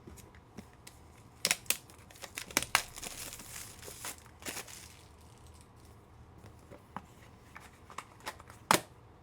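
Foil trading-card pack torn open and its wrapper crinkled: a dense run of sharp tearing crackles in the first half, then scattered clicks of cards being handled and one louder snap near the end.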